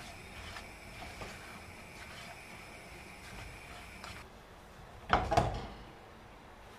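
Silicone spatula stirring flour and chopped almonds dry-toasting in a nonstick frying pan, with soft scraping. Just after five seconds in come two quick knocks of the spatula against the pan, the loudest sound.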